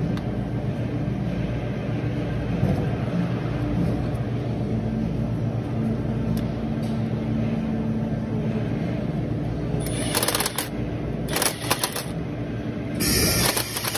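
Red cordless power tool on a long socket extension running steadily as it turns bolts on a forklift's Mazda engine. Near the end come a few sharp metallic clatters and then a louder, noisier burst.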